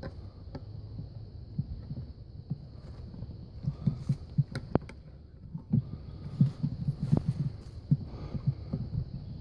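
Handling noise from a hand-held camera carried through woods: a low rumble with many soft thumps, busier in the second half, and a few sharp clicks. A faint steady high tone runs underneath.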